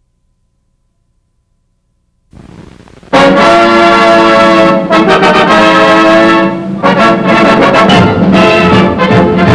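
Silence, then a faint hiss about two seconds in, then loud brass-led orchestral title music starting about three seconds in.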